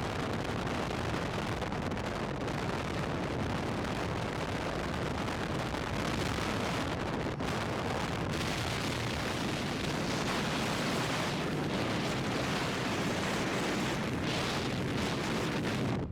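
Steady wind noise rushing over the microphone, an even roar that holds at one level throughout.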